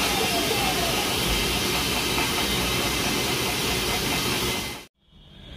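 Steady rushing hiss of background noise that cuts off suddenly near the end.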